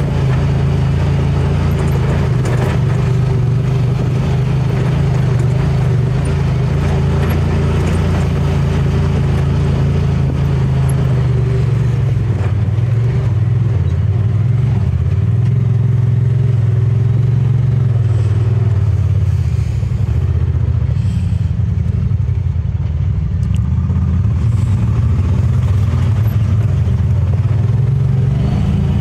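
Honda Pioneer 1000-5 side-by-side's engine running under load while climbing a steep, rough dirt trail, heard from the driver's seat, its pitch rising and falling with the throttle.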